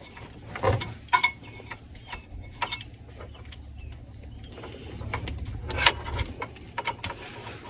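Scattered clicks and taps of a plastic wiring-harness connector being handled, its pin locks pressed into place, over a steady low hum.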